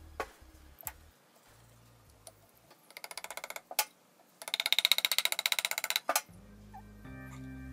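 Two runs of rapid, even clicking from the rear end of an electric water pump's motor, where the cooling fan sits, as it is worked by hand. The second run is longer and louder. A single knock follows each run.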